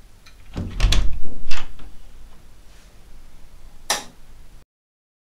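A cluster of heavy knocks and clunks about a second in, a single sharp click near four seconds, then the sound cuts off to dead silence.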